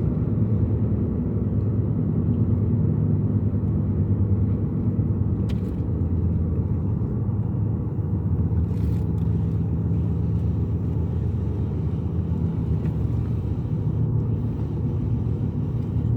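Car cabin noise while driving: a steady low rumble of engine and tyres on the road, heard from inside the car, with a couple of faint ticks partway through.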